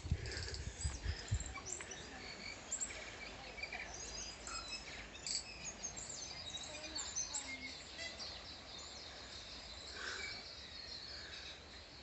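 Tui singing in the tree canopy: a busy run of short, varied high chirps, clicks and whistles. A few low thumps come in the first second or two.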